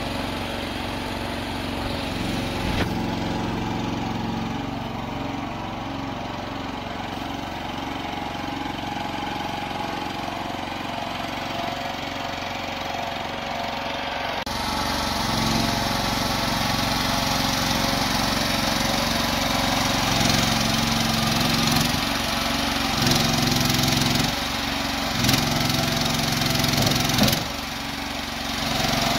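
Small engine of an MS-TL116 mini loader running steadily as the loader drives and handles a round hay bale. It gets louder about halfway through, and its level swells and drops several times in the last third as the bale is raised.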